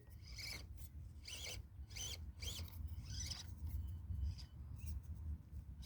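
SCX24 micro crawler working at a stuck spot: its small electric motor whines briefly in short throttle blips, with scattered clicks and scrapes of the truck against the trail.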